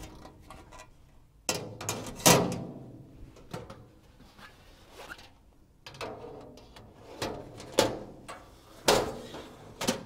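Stainless steel gastronorm pans being handled in a wire cookware basket and the basket set into a commercial pot washer: a series of metallic clanks and scrapes, with short ringing after the louder knocks.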